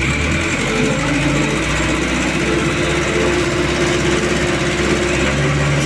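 ACE mobile crane's diesel engine running steadily while it lowers a slung stone slab, its note shifting about five seconds in.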